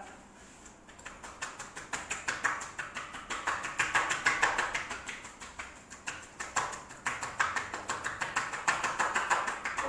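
Quick, even percussive taps of a groomer's hands on a dog's back, about six or seven a second, as a tapping massage.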